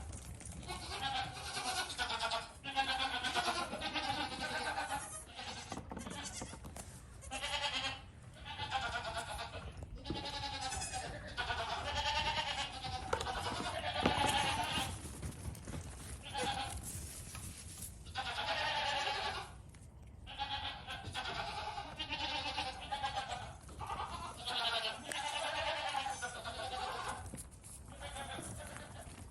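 Goats bleating over and over, one quavering call after another with only short gaps between them.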